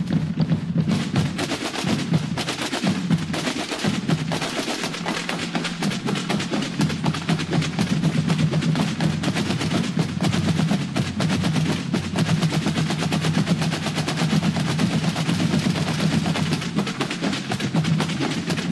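Massed military snare drums of a corps of drums playing together in a dense, unbroken stream of fast strokes and rolls.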